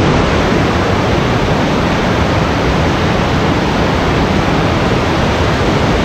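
Waterfall rushing, a loud, steady, even roar of falling water with no other sound standing out.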